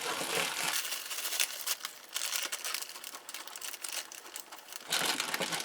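Packaging being handled, crinkling and crackling irregularly with small clicks, louder near the end.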